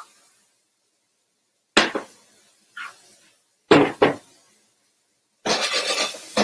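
Kitchen knocks: one sharp knock about two seconds in and two more close together about four seconds in, then about a second of a utensil stirring and scraping vegetables in a frying pan near the end.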